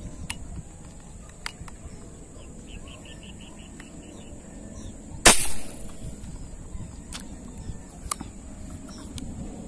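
A scoped fishing gun fires a single shot about five seconds in, a sharp crack, with a few faint clicks before and after.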